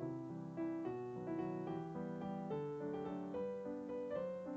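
Soft background piano music, a slow run of held notes.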